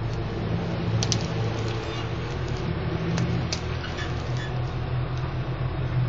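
Pickup truck engine running steadily at low speed while towing a trailer loaded with round hay bales, with a few sharp clicks or clanks about one second in and again around three seconds in.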